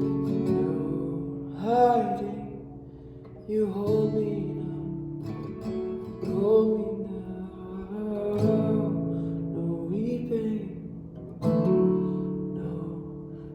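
Acoustic guitar strumming slow, sustained chords in a worship song, each chord struck a few seconds apart and left to ring, with a few brief wordless vocal phrases.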